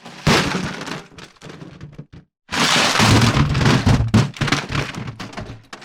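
Ice cubes clattering and rattling in an ice bucket, in two bursts: a short one about a quarter second in that dies away over two seconds, and a longer, busier one starting about two and a half seconds in.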